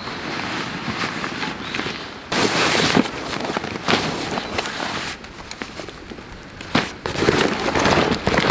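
Rustling and crinkling of a backpack and synthetic-fabric stuff sacks being handled and pulled out, in irregular bursts with small clicks. The loudest stretch comes about two and a half seconds in, and another comes near the end.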